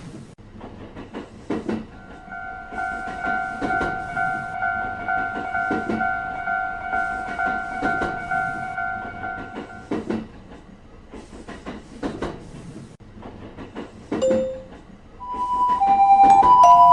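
Japanese railroad crossing alarm ringing its rapid two-tone "kan-kan" pulses for about eight seconds while a train runs past with regular clacks. The alarm stops about ten seconds in. Near the end, a tune of electronic beeps begins.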